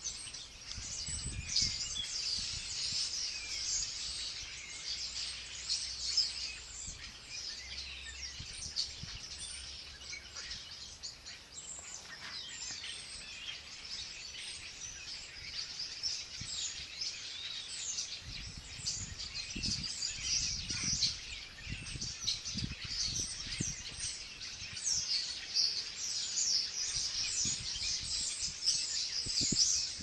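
Many small birds chirping and singing, a dense run of short, high calls throughout. Bouts of low rumbling come under them near the start and again after the middle.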